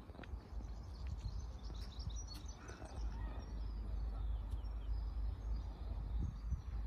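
Open-air platform ambience: a low steady rumble with small birds chirping now and then.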